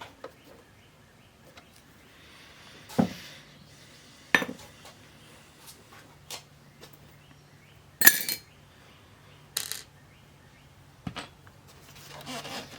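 Small metal tools and parts clinking and knocking on a workbench, about five separate sharp knocks, the loudest about two-thirds of the way in. A low steady hum starts a few seconds in.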